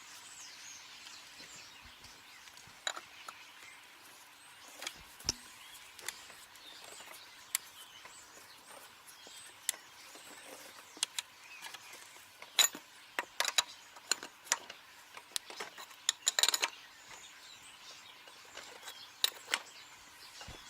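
Irregular metallic clicks and taps of a 19 mm wrench tightening the wheel nuts on a children's quad bike, densest and loudest about two-thirds of the way through.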